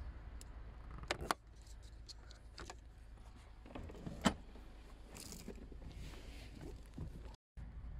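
Scattered metallic clinks and knocks of a spanner and sockets being handled, the sharpest about four seconds in.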